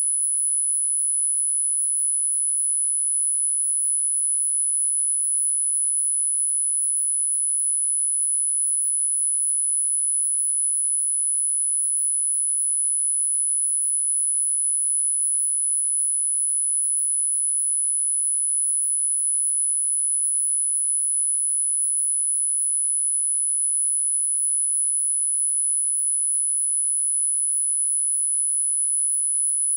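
A single electronically generated pure sine tone from a subliminal frequency track, very high-pitched and held perfectly steady without any change.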